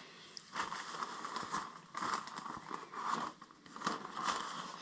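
Hands rummaging through things: irregular rustling, crinkling and light scraping of objects being handled and moved about.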